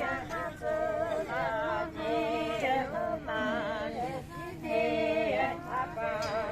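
A group of voices singing together, holding wavering notes in phrases about a second long. There is no clear instrumental accompaniment.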